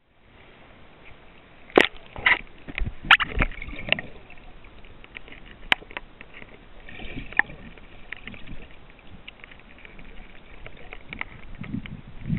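Water sloshing and gurgling around a camera held under the surface of a stream, heard muffled through the wet microphone, with sharp clicks and knocks from the handled camera, the loudest a little under two seconds in and several more over the next few seconds.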